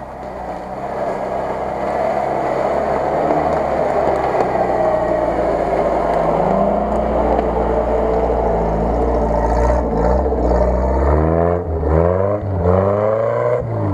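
UAZ-469 off-road vehicle's engine running as it drives through tall grass, getting louder as it approaches. In the last few seconds the engine is revved several times in quick succession, its pitch rising and dropping with each rev.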